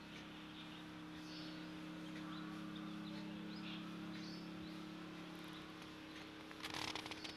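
A steady low hum with faint, scattered bird chirps, and a burst of crackling noise near the end.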